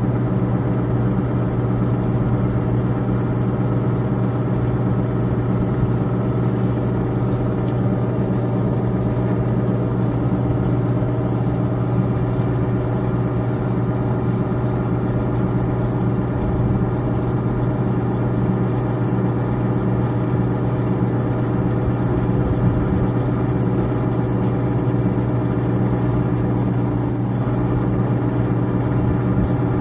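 Steady low machine hum, constant in pitch and level.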